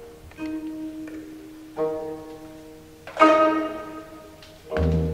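Instrumental background music: a slow run of pitched notes, each starting sharply and fading, about one every second and a half, the loudest about three seconds in, with a deep bass note joining near the end.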